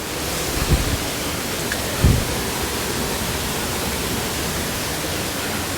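Waterfall's falling water rushing in a steady, dense roar, heard from the cave beneath it. Two brief low thuds come about a second and two seconds in.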